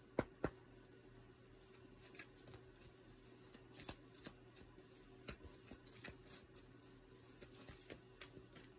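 A tarot deck being shuffled by hand: soft, irregular card clicks and slides, with two sharper snaps just after the start, over a faint steady hum.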